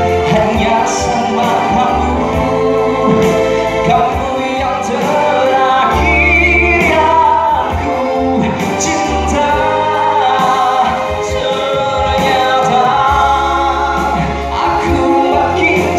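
Live amplified pop duet: a man and a woman singing into microphones over electric keyboard accompaniment with a steady bass line.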